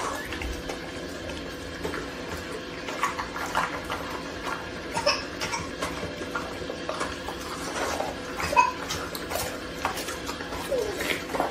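A pit bull-type dog chewing and licking a piece of raw meat: irregular wet smacks, clicks and crunches.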